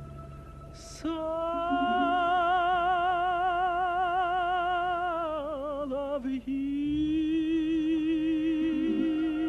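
Solo tenor voice singing wordlessly, holding a long note with a wide, even vibrato from about a second in. After a brief break around the middle, it holds a second sustained note. Quiet choral accompaniment lies underneath.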